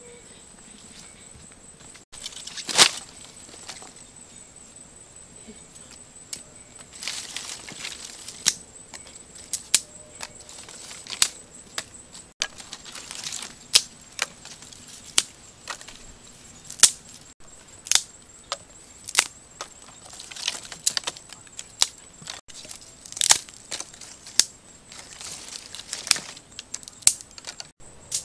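Dry sticks and leaf litter being handled: irregular sharp cracks and snaps of twigs, with bursts of dry rustling. The loudest crack comes about three seconds in.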